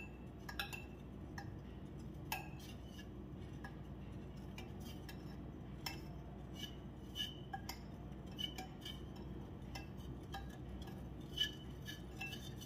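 Stainless steel wire whisk clinking irregularly against a glass bowl while whisking a thin liquid mixture of milk, cream, oil and sugar: light, quick clinks throughout.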